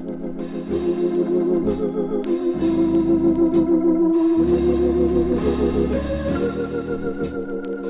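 Hammond organ playing jazz: sustained chords with a wavering vibrato over deep bass notes, the chord changing about every two seconds, with light cymbal strokes from a drum kit.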